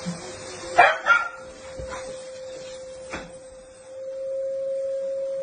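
A dog barking twice in quick succession about a second in, then once more faintly about three seconds in, over a steady high hum that grows louder near the end.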